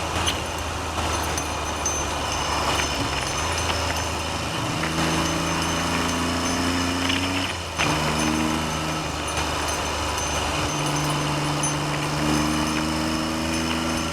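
Triumph Trident's three-cylinder engine pulling steadily on the road, its pitch climbing slowly, then a gear change about eight seconds in. Wind noise on the low-mounted camera's microphone runs under it.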